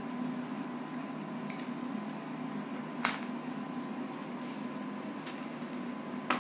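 Steady low background hum with a few short taps and clicks, one about halfway and the sharpest near the end, as a CD digibook and its paper booklets are handled on a wooden table.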